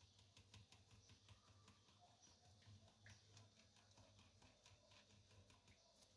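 Faint, quick clicks and taps of a utensil working blended lemon juice through a strainer.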